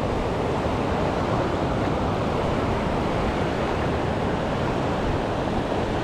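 Mountain river rushing over rocky whitewater rapids: a steady, even rush of water.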